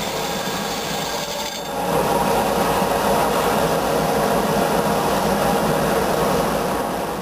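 Evergreen BT-104 planetary abrasive-belt tube grinder running, its belts grinding a bent exhaust pipe with a steady rasping hiss. About two seconds in the sound changes to a louder, lower, steady rush as the machine runs on.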